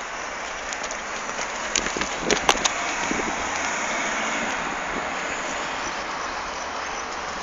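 Steady rushing noise, like wind on the microphone, with a quick cluster of sharp knocks about two seconds in.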